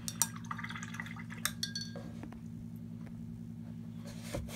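A paintbrush rinsed in a glass water jar: a few light clinks of brush against glass with small splashes, over a steady low hum.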